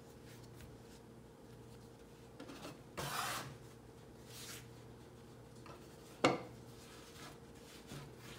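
Hands rubbing and sliding soft sourdough dough across a wooden board, with soft brushing sounds and a louder rush of rubbing about three seconds in. A single sharp knock comes about six seconds in, over a faint steady hum.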